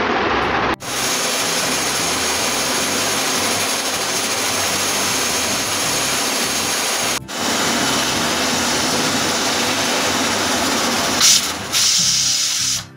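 Pressure cooker whistling on a gas burner as the rice inside reaches full pressure: a loud, steady hiss of steam rushing out past the weight valve, briefly cut off twice. Near the end the hiss turns sharper and louder as the weight is pressed with a spatula, then stops.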